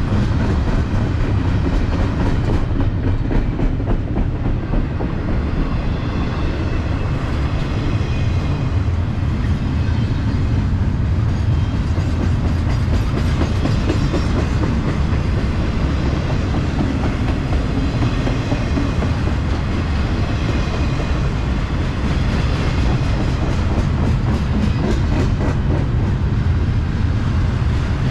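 Mixed freight train rolling past at close range: a steady heavy rumble of cars and wheels on the rails, with runs of clicking as wheels pass over rail joints.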